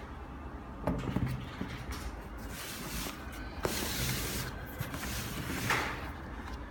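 Handling noise from a cardboard shoebox and sneakers: the box is opened and the shoes are lifted out and set down on it. There are three sharp knocks, about a second in, in the middle and near the end, with rustling between them over a low steady background hum.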